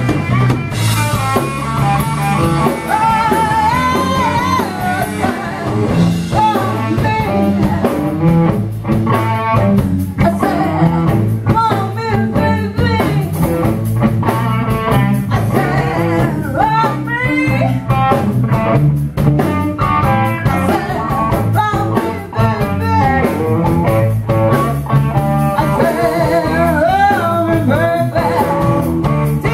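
Live blues and rock-and-roll band playing: electric guitar and drums, with a woman singing into a microphone.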